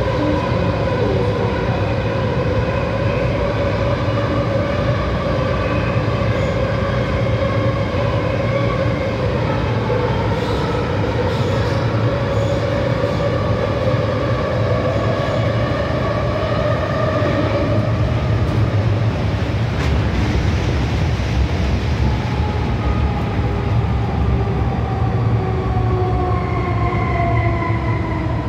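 MTR M-Train electric multiple unit running through an underground tunnel, heard from inside the car: a steady wheel-and-track rumble under the whine of the traction motors. Over the last several seconds the whine falls steadily in pitch as the train slows.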